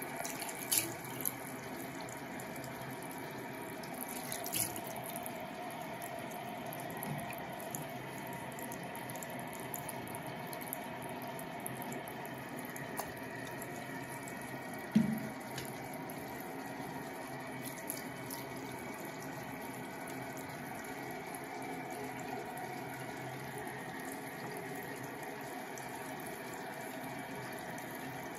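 Tap water running steadily from a bathroom sink faucet into a ceramic basin and over a wet kitten held under the stream. A few brief clicks come in the first seconds, and one short low thump, the loudest moment, about halfway through.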